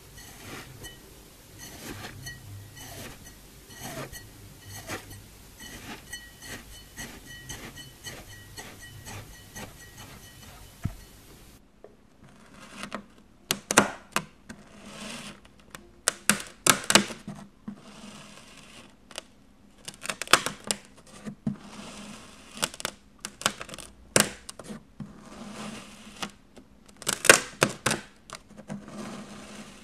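Kinetic sand crunching as it is cut with a plastic knife. It starts with softer, scattered crackles, then about twelve seconds in turns to louder, crisp crunching slices that come in bunches.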